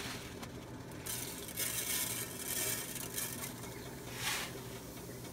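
Cumin seeds sizzling in hot oil in a frying pan, a hiss that swells about a second in and again briefly near four seconds in, over a steady low hum.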